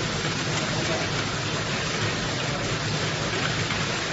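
Horizontal pillow-pack candy wrapping machine running, with a steady, even noise and no distinct beat.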